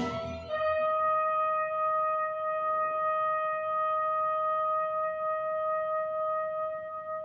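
A wind ensemble breaks off just after the start, leaving a single wind instrument holding one long high note, which fades away near the end.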